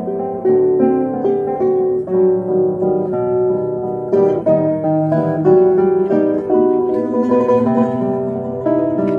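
Classical guitar duo playing: two guitars plucking a quick run of notes over a lower bass line.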